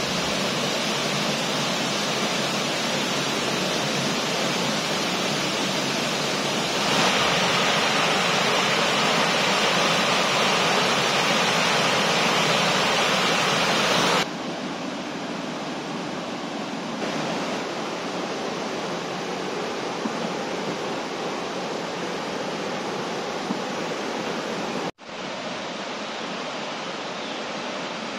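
Steady rush of stream water cascading over rocks and a stone weir. It grows louder about seven seconds in, drops back about halfway through, and cuts out for a moment near the end.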